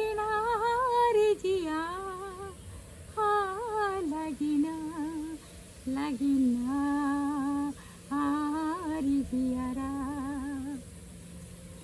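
A woman humming a song tune in held, wavering notes, phrase by phrase with short breaks between; about four seconds in, the tune drops to a lower pitch.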